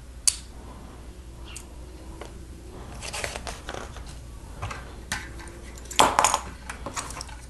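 Plastic Lego pieces being handled and clicked together: a sharp click about a quarter second in, a patch of small rattling clicks around three seconds, and a louder cluster of clacks about six seconds in.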